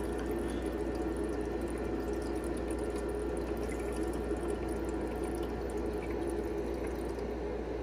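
Euhomy IM-01 portable ice maker pumping water into its ice tray around the chiller coil: water running and splashing steadily, the overflow draining back into the lower reservoir to recirculate. A steady low hum runs underneath.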